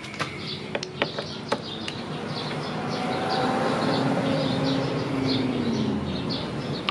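Small birds chirping over and over, a few sharp metal clicks from a hex tool on a motorcycle body-panel bolt in the first second and a half, then a passing vehicle swelling up and fading away through the middle, the loudest sound.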